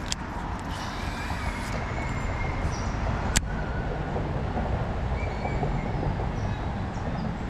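A steady rushing noise with strong low rumble, with one sharp click about three and a half seconds in.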